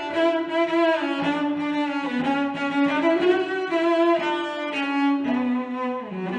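Background music: slow bowed-string melody on cello and violin.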